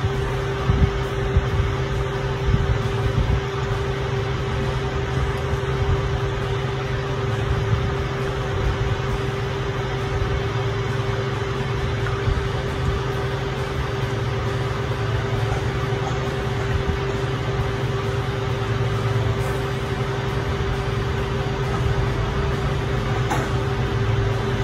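Steady mechanical hum with a constant mid-pitched tone over a low drone, unchanging in level.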